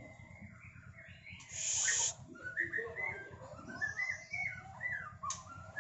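Caged male white-rumped shama (murai batu) singing: a loud harsh rasp about a second and a half in, then a quick run of short, clear, stepping notes. It is a rough, partial song rather than full open-throated song, typical of a bird freshly out of its second moult.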